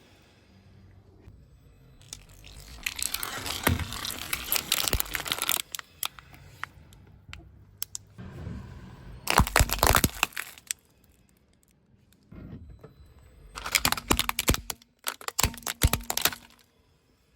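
Crunchy objects cracking and crunching as they are crushed under a car's tyres, in three spells a few seconds apart.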